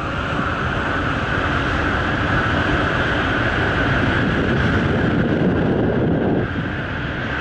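Steady rushing rumble of passing trains that swells over the first few seconds and drops off suddenly about six and a half seconds in.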